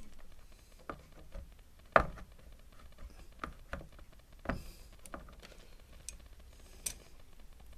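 Scattered clicks and knocks of a dryer's idler tension spring and plastic fittings being handled against the dryer's frame during reassembly, the loudest knock about two seconds in.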